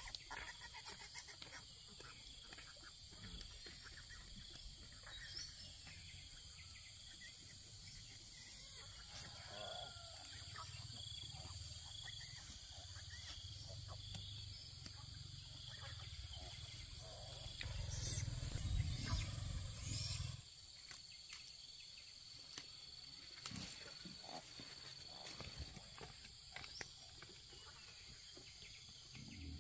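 Faint rural outdoor ambience: steady high thin tones run throughout. A low rumble swells from about eight seconds in and stops suddenly around twenty seconds, and scattered light clicks and rustles sound over it.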